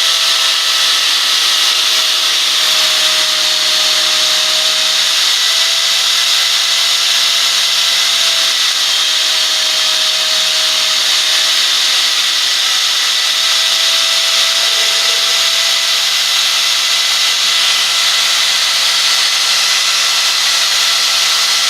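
Grinding wheel cylindrical-grinding a hardened 56 HRC ribbed steel part on an improvised CNC setup. It makes a steady hissing grind with a constant motor whine underneath.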